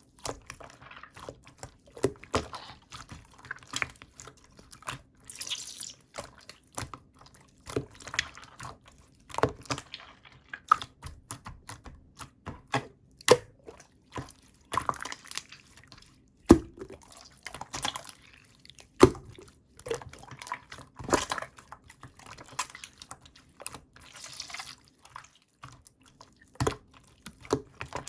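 Clear, watery jelly slime being squeezed, folded and stretched by hand, giving irregular wet sticky pops and clicks with short squishy swishes.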